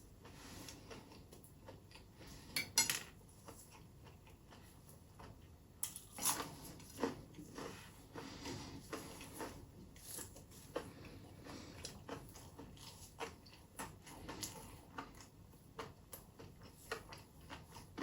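Cutlery clinking against dishes in sharp, irregular clicks, with the loudest cluster about three seconds in and busier clinking from about six seconds on.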